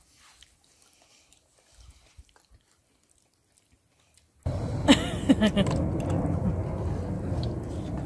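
Faint chewing with small clicks, as of crab being eaten. About four and a half seconds in, a steady low rumble starts suddenly and stays loud, with a couple of brief pitched, voice-like sounds just after it starts.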